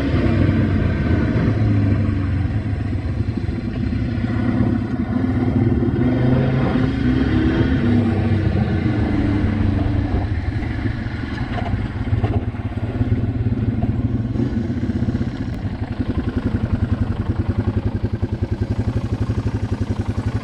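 Yamaha TW200's single-cylinder four-stroke engine running during a test ride, its pitch shifting with the throttle, then settling to an even idle beat in the second half.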